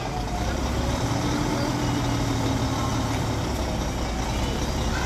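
Hyundai dump truck's heavy diesel engine running steadily as the truck creeps forward, tipping a load of soil with its bed raised.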